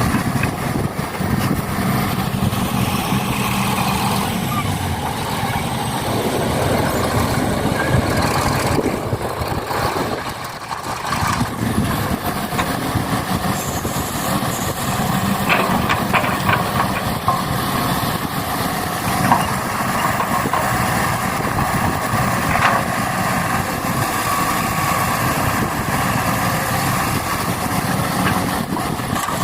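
Truck engine running steadily, with a brief dip about ten seconds in and a few sharp clicks and knocks later on.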